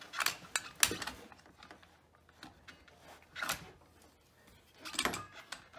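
Handling noise from a self-contained breathing apparatus: a few separate knocks and scrapes as the air cylinder is slid into the backpack frame and lined up. The loudest knock comes about a second in.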